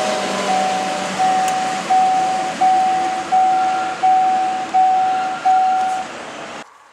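Level-crossing warning bell ringing about three strikes every two seconds, each strike sharp and fading, over the running noise of a passing electric train on metre-gauge track. The bell stops about six seconds in, and the sound drops away sharply just after.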